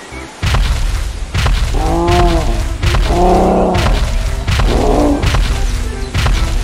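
Cartoon dinosaur sound effects: heavy, booming footfalls in quick succession, with three deep roars laid over them.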